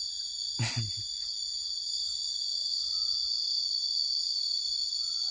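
Steady high-pitched drone of forest insects, several shrill pitches held without a break. A brief voice sound cuts in about half a second in.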